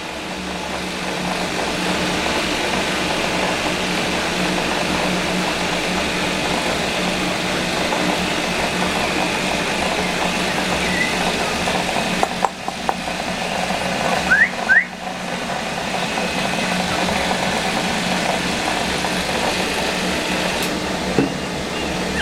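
A steady background hum with an even hiss, of the kind an air conditioner or fan makes. About two-thirds of the way in, a one-month-old puppy gives two short, rising squeaks, with a fainter squeak a few seconds earlier and a few light knocks around them.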